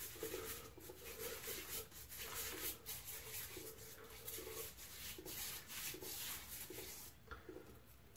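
A two-band badger shaving brush working shaving-soap lather onto a stubbled face: faint, repeated bristly rubbing strokes that stop near the end.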